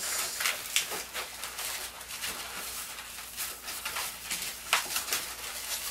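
Qualatex 260Q goldenrod latex modelling balloon squeaking and rubbing in the hands as it is twisted into pinch twists: an irregular run of short, sharp squeaks and rubs.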